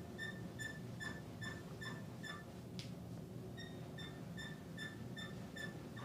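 Short, high squeaks repeating evenly, about two and a half a second, with a break of about a second near the middle.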